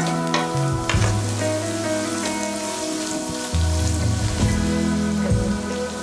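Sliced onion and canned sprats sizzling in hot oil in a frying pan, with a few clicks of a wooden spatula stirring against the pan in the first second. Background music with held low notes plays underneath.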